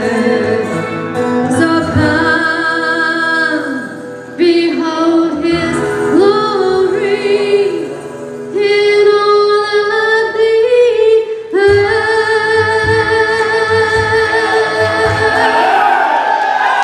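A woman singing drawn-out, wordless held notes with vibrato over instrumental accompaniment. About twelve seconds in, voice and accompaniment settle on one long held final chord that closes the song.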